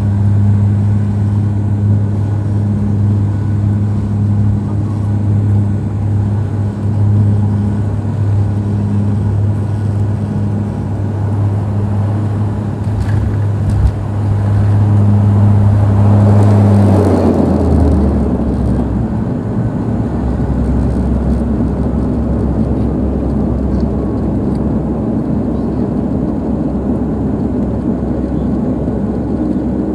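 Airliner cabin noise during landing: a steady low drone of the engines and airflow, then a single thump of the wheels touching down about halfway through. A louder roar of reverse thrust swells for a few seconds, and the drone gives way to the rumble of the rollout on the runway.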